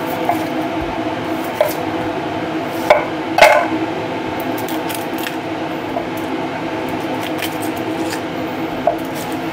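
A kitchen appliance hums steadily with a droning tone under a few sharp clicks and crackles as a dry onion is peeled and trimmed with a knife on a wooden chopping board. The loudest click comes a bit over three seconds in.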